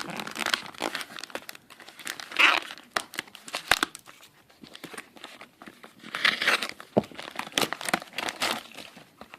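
A mailed package being opened by hand: its packing crinkling and tearing in several irregular bursts, with sharp clicks of handling in between.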